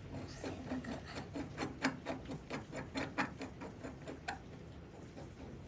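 A quick run of light knocks or taps, about four to five a second, stopping a little over four seconds in.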